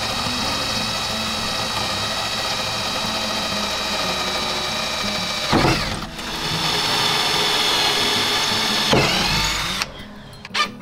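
Craftsman cordless drill running steadily as it bores into a wooden beam, with a high, even motor whine. It slows briefly about halfway through and picks up again, then stops about a second before the end.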